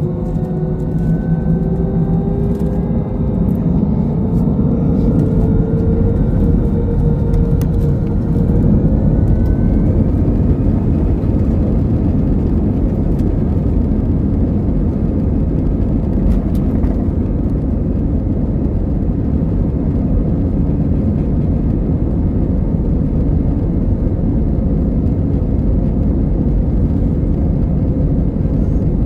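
Airbus A320's twin jet engines heard from inside the cabin, spooling up to takeoff power with whines rising in pitch over the first ten seconds or so. Then a loud, steady roar and rumble of the takeoff roll.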